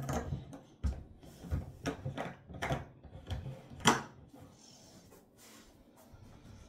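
Rummaging: a run of about ten knocks and clatters as small objects are picked up and put down, the loudest about four seconds in.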